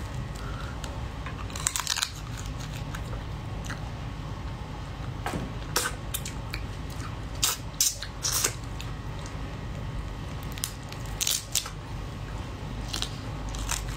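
Cooked crab shell cracking and snapping as the legs and body are pulled apart and bitten into: a scatter of sharp cracks, several close together in the middle, over a steady low hum.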